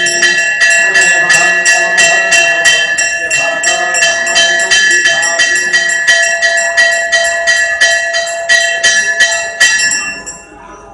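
Puja hand bell rung continuously in quick even strokes, about three a second, with a bright ringing tone, stopping about ten seconds in.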